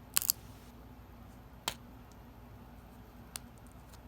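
A few short, sharp clicks and crackles from handling an opened old wax pack of trading cards and its stick of gum: a quick cluster just after the start, then single clicks about a second and a half apart.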